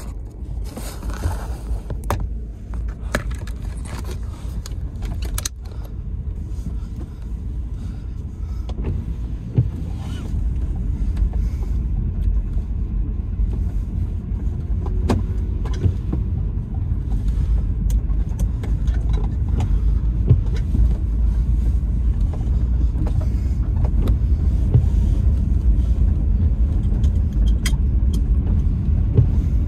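Car driving slowly over a rough, wet gravel road, heard from inside the cabin: a steady low rumble of engine and tyres that grows a little louder about a third of the way in. Scattered sharp knocks and rattles come through as it goes over the bumps, most of them in the first few seconds.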